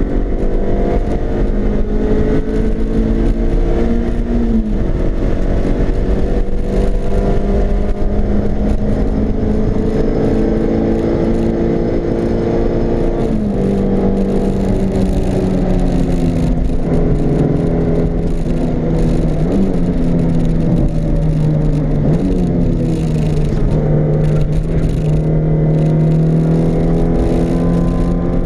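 Car engine heard from inside the cabin under hard acceleration, its pitch climbing slowly and dropping sharply at an upshift about halfway through. It then holds at high revs with a few brief dips, and falls away near the end as the car slows, over a steady rush of wind and tyre noise.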